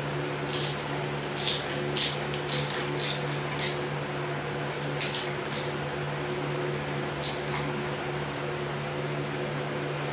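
Quarter-inch-drive ratchet clicking in short runs as a piston ring compressor is tightened around a piston, over a steady low hum.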